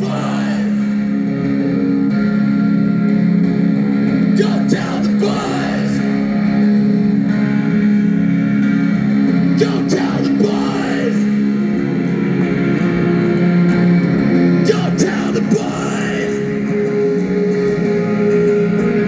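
Live band music: an instrumental passage of a rock song, guitar-led and with no singing.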